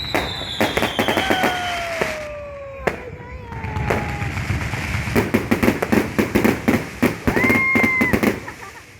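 New Year fireworks and firecrackers going off in rapid, overlapping bangs and crackles, thickest in the second half. Several whistling tones sound over them, most sliding down in pitch in the first few seconds and one held briefly near the end.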